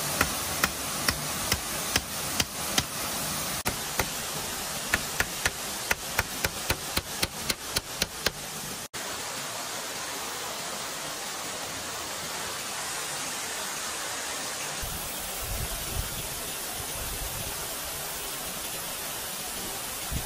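A run of sharp, evenly spaced blows, about two a second and speeding up to about three a second, over a steady hiss; they stop abruptly about nine seconds in. After that there is only a steady rushing noise, with a low rumble near the end.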